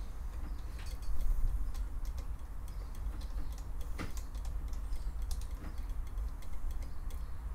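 Small irregular clicks and taps from fingers handling a Suzuki GS500's twin carburettor bank, the sharpest about four seconds in, over a steady low rumble.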